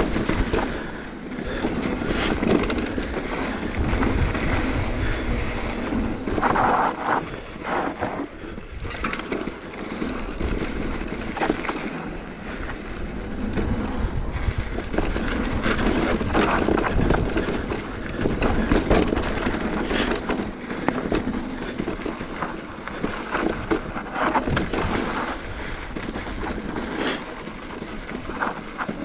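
Electric mountain bike rolling fast over a dry dirt trail: a steady rumble and crunch of knobby tyres on loose dirt, with sharp knocks and rattles from the bike as it hits rocks and bumps.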